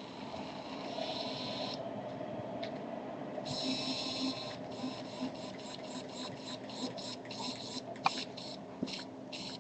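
Small electric motor of a radio-controlled car whirring, starting and stopping in a series of short bursts.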